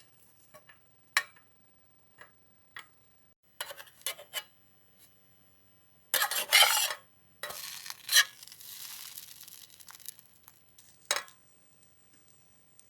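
Cooking utensils and dishes clinking and scraping: scattered sharp knocks, with a louder scraping stretch about six seconds in.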